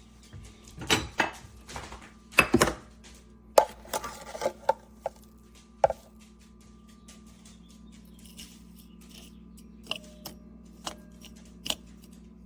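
Kitchen items being handled: a run of irregular knocks and clatters of hard objects in the first six seconds, then a few light clicks near the end, over a faint steady hum.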